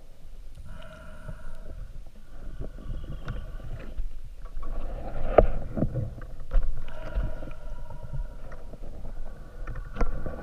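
Underwater sound heard through the housing of a camera on a speargun: a muffled rumble of moving water, a humming tone that comes and goes in stretches of a second or two, and several sharp knocks, the strongest about halfway through and near the end.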